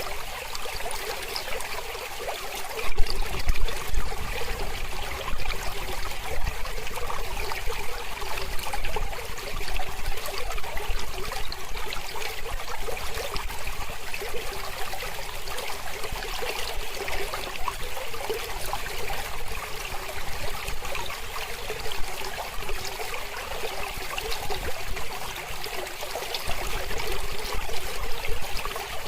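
Mountain river flowing over rocks: a steady rush of water with trickling and splashing. A low rumble comes in about three seconds in.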